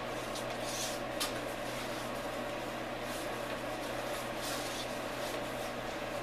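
Brush swishing in repeated soft strokes as linseed oil is spread over a cedar plank canoe hull, over a steady low hum.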